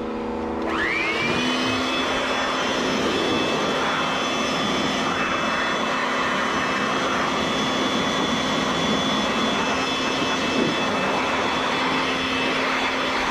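Air blower spinning up with a rising whine about a second in, then running steadily with a high whine over rushing air as it blows dust out of an air-conditioner condensing unit.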